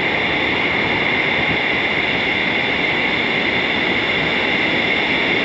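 Steady noise of breaking surf with wind on the microphone, with no distinct events.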